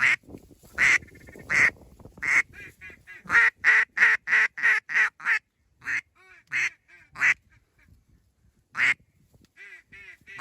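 Loud duck quacks, mallard-style: a few single quacks, then a quick run of about eight quacks a little over three seconds in, then more spaced-out quacks.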